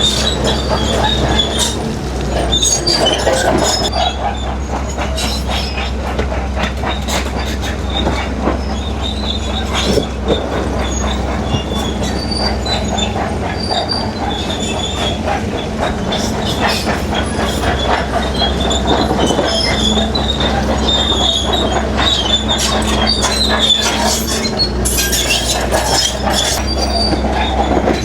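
Heavy-duty crawler bulldozer at work pushing rock: a steady diesel engine drone under high metallic squealing and frequent clanks and knocks from its steel tracks and the rock.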